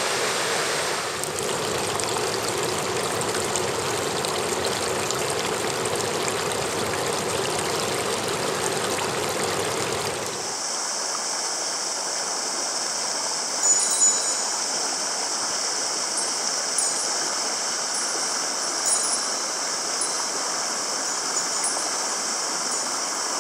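Mountain stream rushing over rocks in a steady, full flow. About ten seconds in it changes abruptly to a thinner, hissier running-water sound, with a couple of brief sharper sounds a few seconds later.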